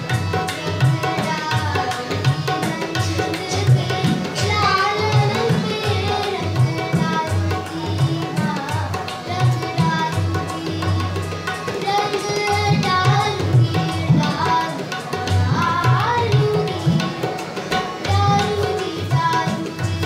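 A boy singing with harmonium and tabla accompaniment. The tabla keeps up a dense run of strokes under the harmonium's held notes, and the voice comes in phrases with sliding, wavering pitch.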